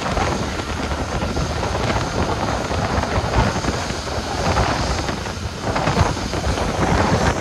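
Strong gusty wind buffeting the microphone: a deep rumble with a steady rushing hiss over it, swelling and easing from moment to moment.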